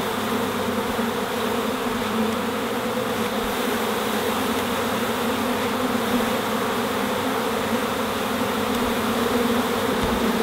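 A mass of honey bees buzzing in a steady hum around an open hive while frames full of bees are being handled.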